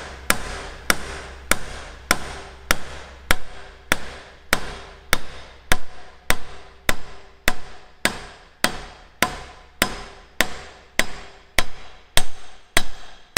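A hammer steadily striking a steel drift, driving a kingpin bush into a Massey Ferguson 135's front stub-axle housing: sharp metallic knocks, each with a short ring, a little under two blows a second.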